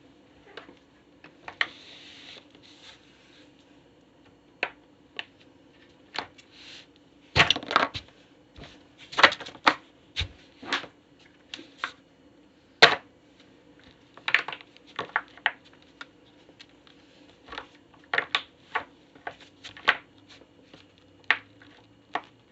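Irregular plastic clicks, snaps and crackles of fidget toys being stepped on, some single sharp snaps and some quick clusters, the loudest about a third of the way through.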